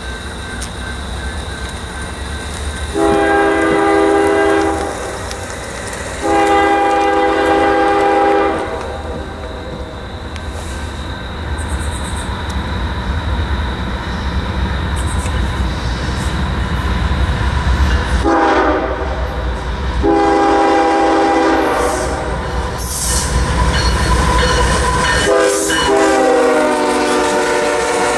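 CSX freight locomotive approaching at the head of a loaded gravel train, its diesel engine rumbling low as it sounds its multi-note horn five times: two long blasts, a short one, a long one, and a last long blast that drops in pitch as the locomotive passes. The loaded hopper cars clatter by near the end.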